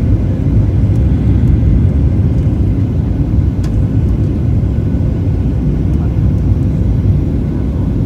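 Steady low rumble of jet engines and rushing air heard inside an airliner cabin during the descent to land.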